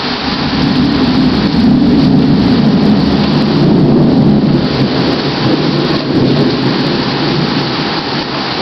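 Rolling thunder rumbling loudly over steady rain, swelling about a second in and easing off after about five seconds.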